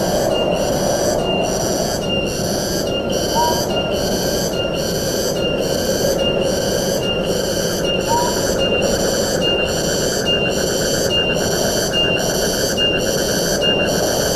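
Forest wind ambience: a steady rushing of wind with a high buzz over it that pulses about three times every two seconds. Two short rising whistles come a few seconds in and about halfway through.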